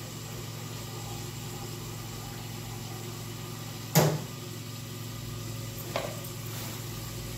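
A steady low hum, with a sharp knock of kitchenware about four seconds in and a lighter knock about two seconds later.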